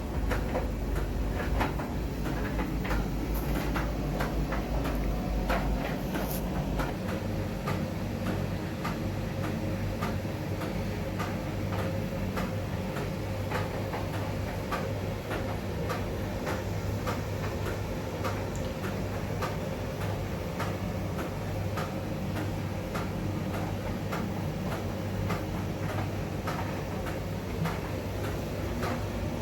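Miele front-loading laundry machine running with bath towels tumbling in the drum: a steady low motor hum that steps up in pitch about seven seconds in, with regular light clicks throughout.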